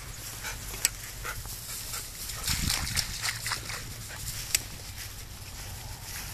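Black Labrador close to the microphone, making a run of short dog noises in the middle, over a low steady rumble with two sharp clicks.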